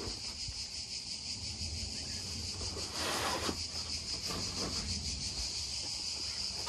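Crickets chirping steadily in a high, fast-pulsing trill, with a short burst of noise about three seconds in.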